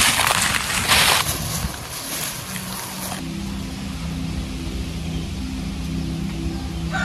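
Crunching and rustling of dry leaf litter underfoot. From about three seconds in, a small engine runs steadily with a low, even hum.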